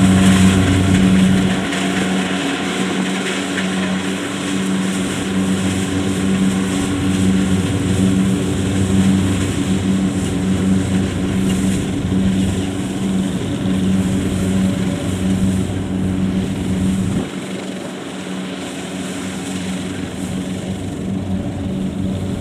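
Kubota DC70 rice combine harvester's diesel engine running steadily, a continuous engine drone that drops slightly in level about seventeen seconds in.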